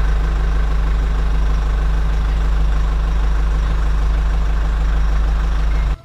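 Dump truck engine idling steadily while its tipper bed is raised to unload soil: an even low rumble.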